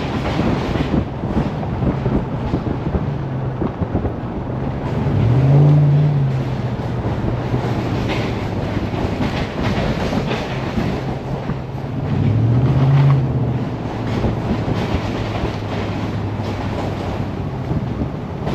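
Ram 1500 pickup truck driving on a gravel road: a steady engine drone over tyre and road noise. The engine note rises and falls briefly twice, about a third of the way in and again about two-thirds in.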